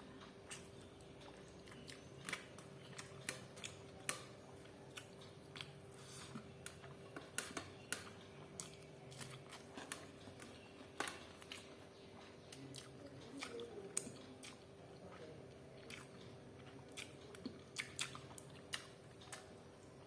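Close-miked eating sounds of chicken dry fry and jeera rice: chewing and biting with many irregular sharp, crunchy mouth clicks. A steady faint hum runs underneath.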